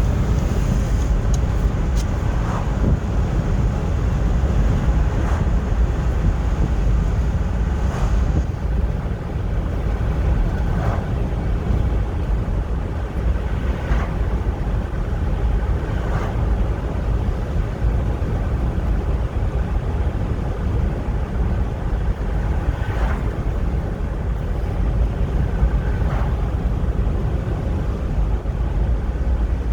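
Steady road and engine rumble heard from inside a moving car, with a few faint ticks now and then. A thin high whine sounds for about the first eight seconds, then stops.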